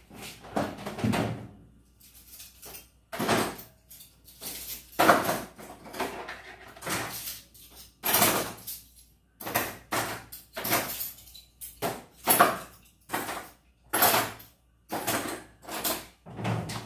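Dishes, pots and pans being put away: an irregular string of knocks and clatters of kitchenware and cupboard doors, roughly one or two a second, some with a short ring.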